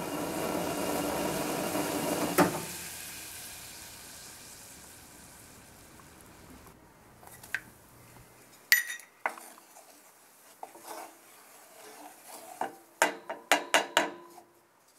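Water in a saucepan on a gas burner boiling loudly, then a knock about two seconds in, after which the boiling fades away. Later a metal spoon clinks on the pan, and near the end a wooden spoon stirs coffee grounds into the water, knocking against the pan's sides several times in quick succession.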